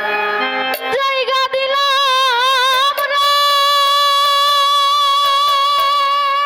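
Young female singer performing a Bengali bicched folk song into a microphone: a wavering, ornamented phrase, then one long held note from about three seconds in. A steady held chord of accompaniment sounds under the opening second.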